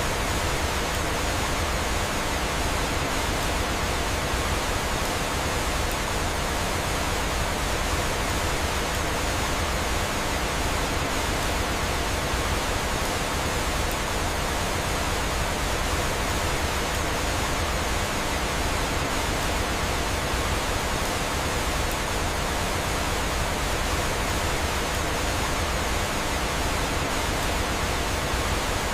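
Flowing water and waterfalls rushing steadily in an even, unbroken wash of noise.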